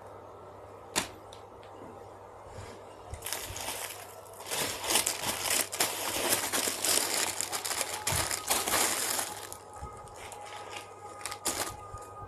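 Handling noise of squishy toys being picked up and squeezed: crinkling and rustling with many small clicks, loudest through the middle. A single sharp click comes about a second in.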